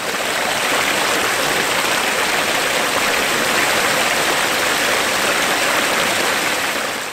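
Steady rushing noise like flowing water, with no pitch or rhythm, fading in at the start and fading out at the end.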